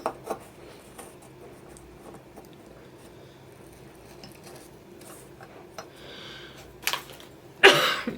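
Handling of small mystery pin boxes and their packaging on a table: a few light clicks and taps, then a short, louder rustle near the end.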